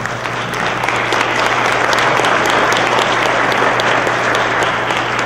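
Audience applauding: many hands clapping in a dense patter that swells over the first second and then holds steady.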